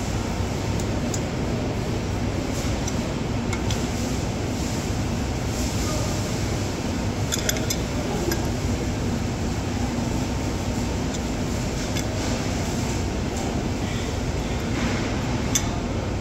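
Steady low rumbling background noise with a faint hum, and a few light metallic clinks, two of them about seven and a half and fifteen and a half seconds in.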